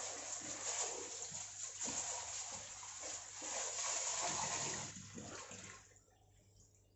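LG washing machine draining on a spin program, with water rushing out steadily until it dies away about six seconds in.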